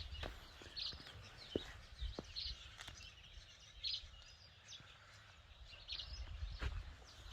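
A bird giving short, high chirps about once a second. There are a few soft knocks, and a low rumble near the start and again near the end.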